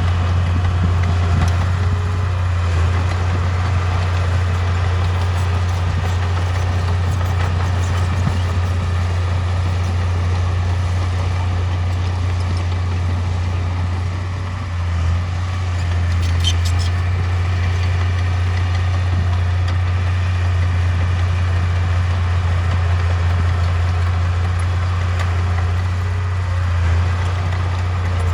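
Heavy construction machine's diesel engine running steadily with a deep, even drone, dipping briefly about halfway through.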